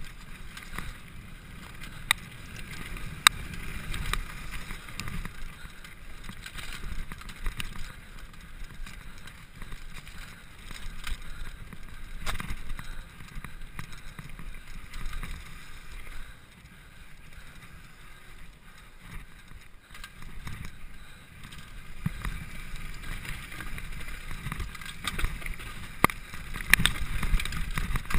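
Downhill mountain bike descending fast on a dirt trail: wind buffeting the camera microphone and tyres rumbling over the dirt, with scattered sharp clacks and rattles from the bike over bumps. It gets louder and rougher near the end as the trail steepens into the woods.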